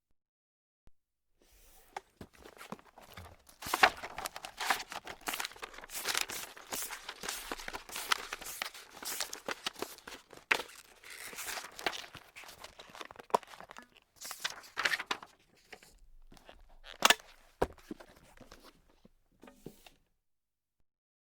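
Paper being crumpled and scrunched by hand: a dense run of crisp crackles that eases off after about sixteen seconds, followed by a few louder, sharper crackles.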